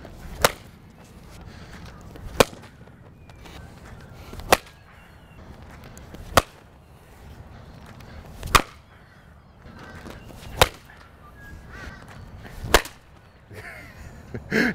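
Cricket balls struck by a glue-repaired willow cricket bat: seven sharp wooden cracks, evenly spaced about two seconds apart. The hits re-crack the bat through its glued repair.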